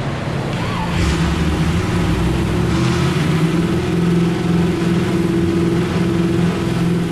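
Chevrolet small-block 350 V8 on an engine dyno, running steadily at an even pitch after a cold start, at about 2,500 RPM under light load in its warm-up cycle.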